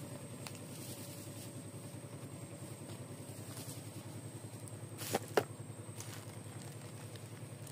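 A small engine running steadily with a fast, even low pulse. Two brief sharp sounds come about five seconds in.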